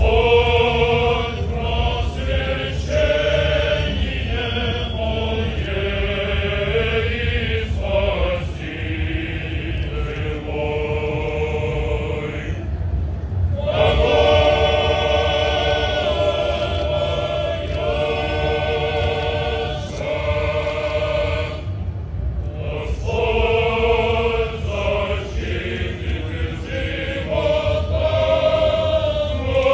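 Male Orthodox choir singing a cappella in several-part harmony: long held chords in phrases, with brief breaks about 13 and 22 seconds in, over a steady low rumble.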